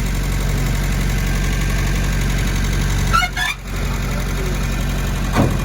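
Restored Jeep's engine idling steadily. The sound drops briefly about three and a half seconds in, and there is a short knock near the end.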